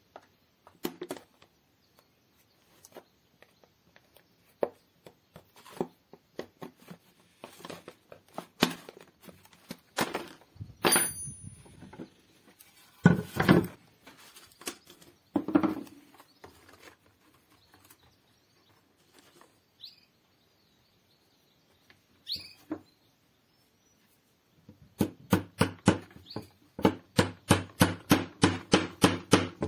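Small hammer tapping on a nail against thin plastic trays: scattered knocks and handling clatter at first, then a fast, even run of taps, about four or five a second, over the last few seconds.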